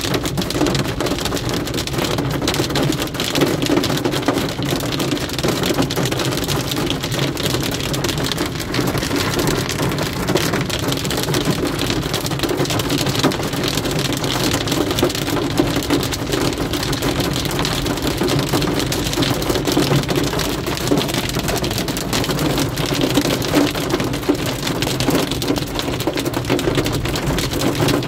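Heavy rain drumming on a car's roof and windshield from inside the moving car: a dense, steady patter of countless drops that holds at the same level throughout.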